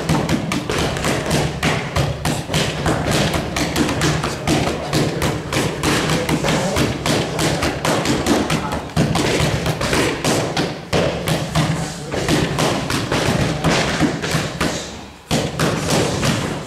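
Boxing gloves striking padded focus mitts in quick, continuous combinations, several thuds a second, with a brief pause about fifteen seconds in.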